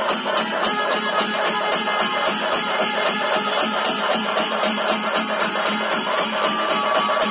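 Kerala temple percussion ensemble playing a fast, steady beat: drums with ilathalam hand cymbals clashing about five times a second, over held wind notes.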